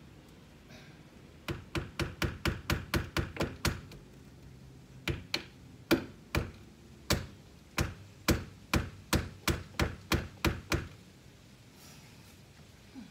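Hammer driving nails into a window frame: a quick run of about ten sharp strikes, a pause, then a longer, slower run of strikes that stops near the end.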